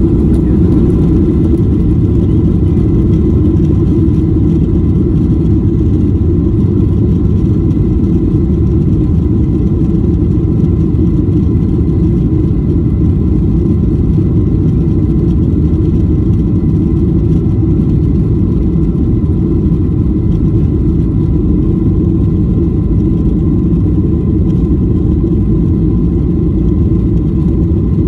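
Steady loud cabin rumble of a Boeing 737-800 rolling along the runway, its CFM56 engines running, with a faint steady whine above the rumble.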